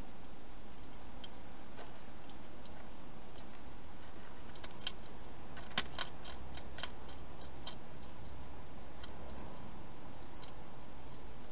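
Wild hedgehog eating, crunching its food with sharp clicks: scattered at first, a quick run of them a little after the middle, then scattered again, over a steady hiss.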